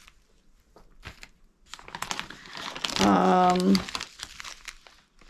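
Packaging crinkling and rustling as small packets of dried herbs are handled, starting a couple of seconds in. A brief held vocal sound, like a hum, comes about three seconds in.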